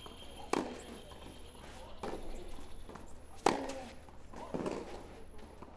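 Tennis rally: racket strikes on the ball every second or so, two of them sharp and loud and the ones between fainter.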